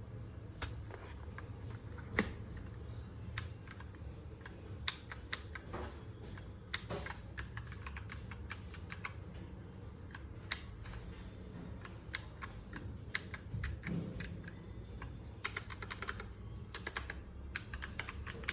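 Typing on an EvoFox Katana X2 TKL mechanical keyboard with red switches: irregular keystroke clicks, with quick runs of keys about a third of the way in and again near the end.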